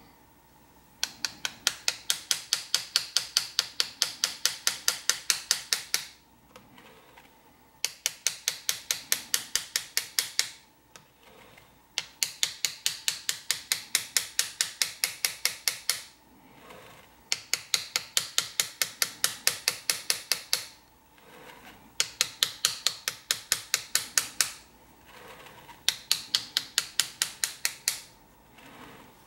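Small engraver's hammer tapping the end of a hand-held chisel as it cuts a scroll into a metal plate. The taps are rapid, light and even, about six a second, in runs of three to five seconds with short pauses between.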